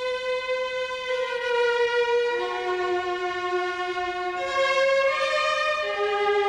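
Slow instrumental background music: long held notes sounding two at a time, each moving to a new pitch every second or two.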